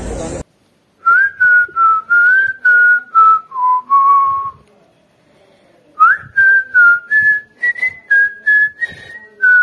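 Intro music: a whistled tune, one clear note at a time over a light beat, starting about a second in, breaking off for about a second midway and then starting again.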